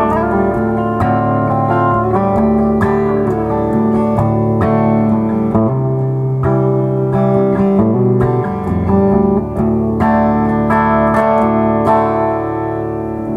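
2013 Gretsch White Falcon G6136T hollow-body electric guitar with Filtertron pickups, played clean through a Laney amp: chords picked and left to ring. Its bass-enhance toggle is switched in, giving a warm, bass-heavy tone.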